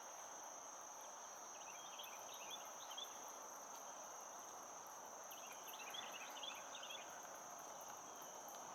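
Faint, steady, high-pitched chorus of insects, with two short bursts of small bird chirps about two and six seconds in.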